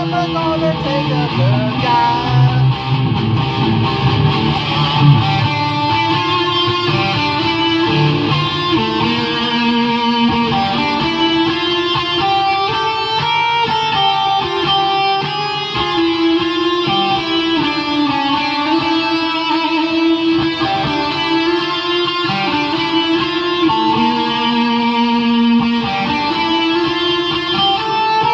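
Electric guitar playing an instrumental lead melody, with bent notes in the first couple of seconds, then a run of steadier held notes.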